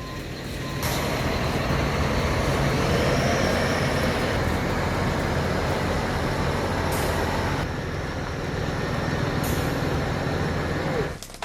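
Heavy machinery engine running steadily, with a broad mechanical noise that swells about a second in and holds.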